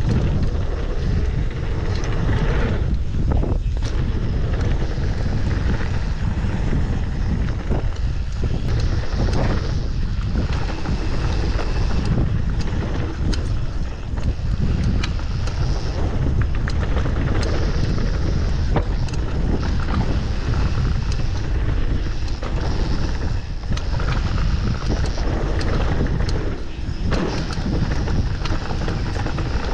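Mountain bike descending a rough enduro trail: constant wind buffeting the microphone, with frequent sharp clicks and rattles from the bike and tyres over rocky ground.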